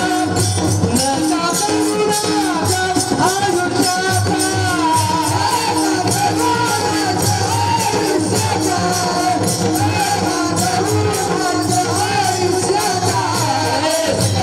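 Marathi devotional group singing: a lead voice and chorus sing over many small hand cymbals (taal) clashing on a steady quick beat, with a barrel drum (pakhawaj) underneath.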